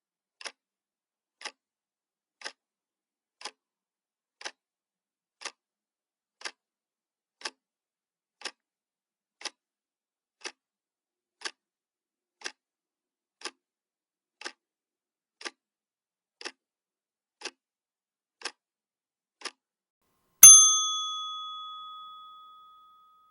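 Clock-tick sound effect ticking once a second, about twenty ticks, then near the end a single bell-like ding rings out and fades over a couple of seconds, signalling that the 60-second countdown has run out.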